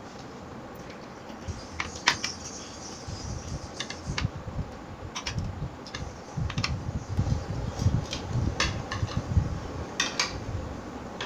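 Metal forks and spoons clicking and scraping against ceramic plates of macaroni, with close-up chewing. About a dozen sharp clicks come at irregular intervals.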